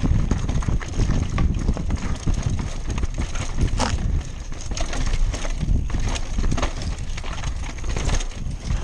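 Downhill mountain bike rattling and clattering at speed over rocks and roots, with sharp knocks from hard hits, several in a row about four, six and eight seconds in, over a heavy low wind rumble on the microphone.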